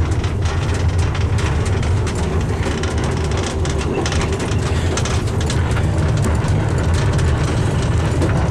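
Boat riding on a trailer being towed along a road: a steady low rumble of road and engine noise with constant rattling and knocking.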